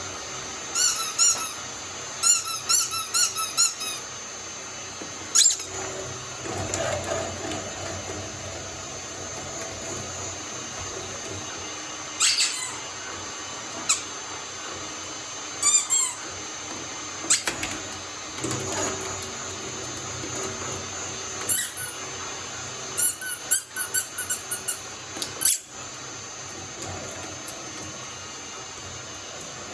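Shredder running with a steady hum while slime is fed through it, giving repeated short, wavering high squeaks and a few sharp snaps.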